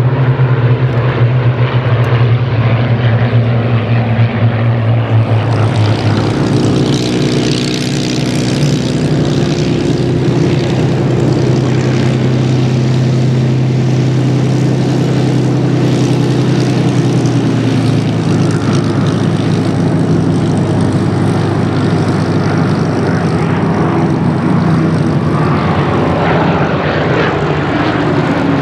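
Rolls-Royce Merlin V12 piston engines of Spitfires and Hurricanes flying in formation: a loud, steady propeller drone. Its pitch shifts about six seconds in and falls near the end as the aircraft pass overhead.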